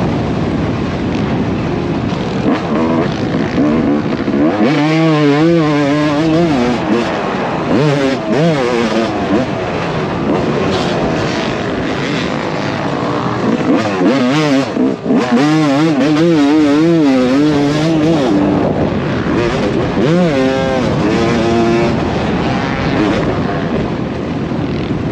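Dirt bike engines on a motocross track, revving hard with the pitch swinging up and down again and again as the riders work the throttle and shift gears.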